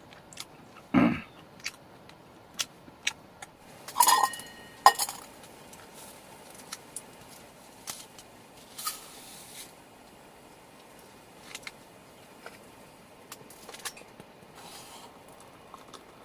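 Tableware clinking and tapping during a meal: scattered light clicks, a dull knock about a second in, and a ringing clink about four seconds in.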